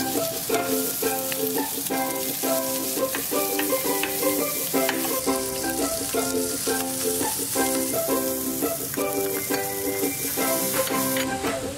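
Eggs, tofu, chicken, prawns and rice noodles sizzling in a hot frying pan as they are stirred with a wooden spoon. Background music with a short plucked-string phrase repeating plays underneath.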